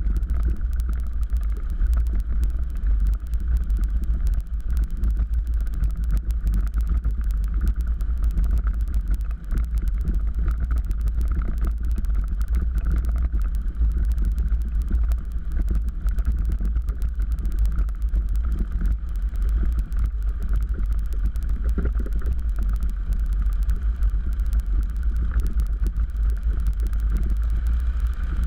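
Cozy Mk4's pusher piston engine and propeller running steadily at low power while the plane rolls on the ground, a deep rumble that holds level throughout.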